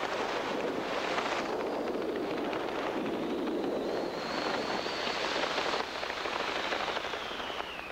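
Wind rushing over a skydiving cameraman's microphone during the descent under an open parachute: a steady rush of noise. A faint whistle comes in partway through and slides down in pitch near the end as the noise eases.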